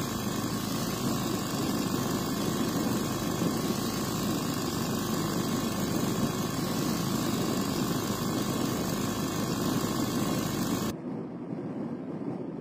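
Air-cooled motorcycle engine driving a wooden propeller, running steadily with a dense rumble and the whirr of the spinning blades. About eleven seconds in it drops abruptly to a quieter, duller rumble.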